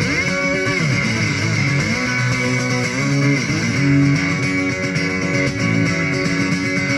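Acoustic guitar played through PA speakers in an instrumental passage of a live song, with no singing.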